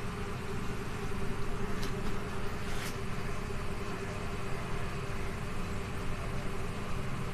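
Steady motor hum with a fixed tone, mechanical and unchanging. About two and three seconds in, two brief high scratches of a marker on a whiteboard.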